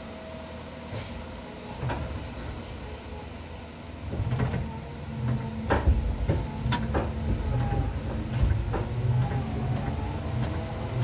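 Seibu Tamako Line electric commuter train (set 263F) heard from inside. A low steady hum for the first few seconds, then about four seconds in the running noise grows loud: a low rumble with sharp clicks and knocks of the wheels over rail joints. Near the end comes a rising motor whine.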